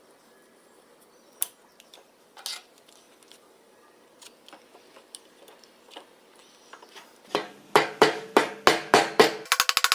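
Hammer striking metal: a few scattered light taps, then from about seven seconds in a run of loud, ringing blows about three a second, turning near the end into rapid strikes about ten a second.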